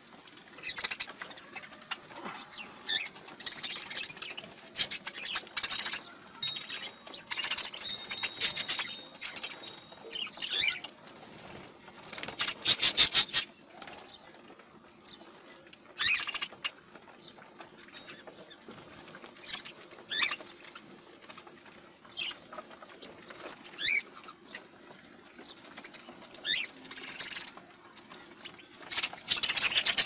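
Budgerigars chirping in short, scattered calls, with a brief louder rapid flurry about halfway through.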